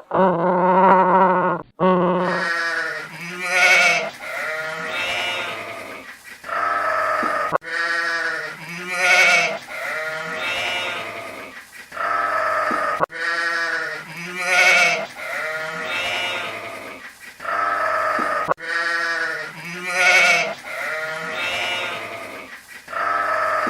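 Repeated bleating calls with a quavering, wavering pitch. The same run of calls starts over about every five and a half seconds.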